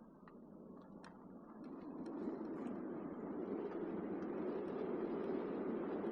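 Car driving on the road, a steady rush of tyre and road noise that grows louder about two seconds in, with a few faint ticks early on.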